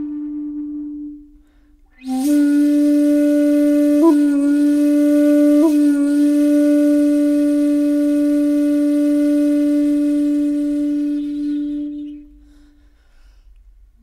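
Solo flute playing slow, long low notes: one note fades out about a second in, then after a short pause a new, breathy note swells in and is held for about ten seconds, broken by two quick ornamental flicks, before it fades away.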